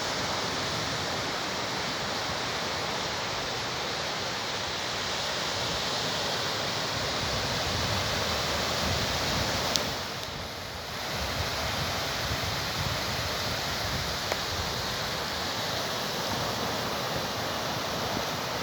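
Steady rushing wash of sea surf breaking on the shore, easing off briefly about ten seconds in.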